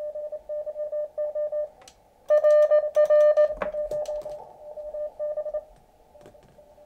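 Morse code (CW) from the Elecraft KX2 transceiver's receiver: a single tone keyed fast in dots and dashes over band hiss. A much louder stretch of keying comes about two seconds in, and the signal stops a second before the end.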